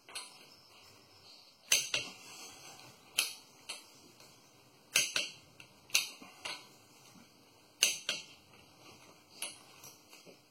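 Click-type torque wrench clicking off as the wheel lug nuts reach their set torque: sharp metallic clicks every second or so, several in quick pairs.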